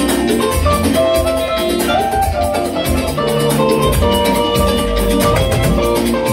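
Live band music played loud: electronic keyboards playing melodic lines over a steady drum beat.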